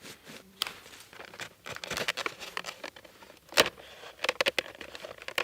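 Crackling and rustling of a handmade basket being handled as a stick is pushed into its bottom, with irregular sharp clicks, the loudest about three and a half seconds in.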